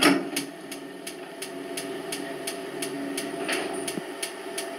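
Junkers wall-mounted gas water heater's spark igniter clicking at an even pace, about three clicks a second, while its control is held in to light the burner. A low steady hum runs underneath.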